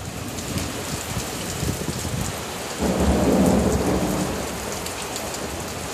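Steady heavy rain with a peal of thunder rumbling in about three seconds in, a big echoing roll that fades away over the next couple of seconds.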